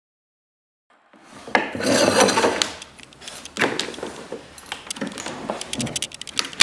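Hand-work noises on a wooden workbench, starting about a second in: a loud stretch of rubbing and scraping, then knocks and metal clinks from a metal pan, and a quick run of clicks and taps as pliers work at a wooden canvas stretcher frame.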